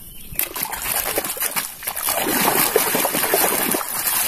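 A plastic toy truck being swished and scrubbed by hand in muddy water: continuous splashing and sloshing that starts about half a second in.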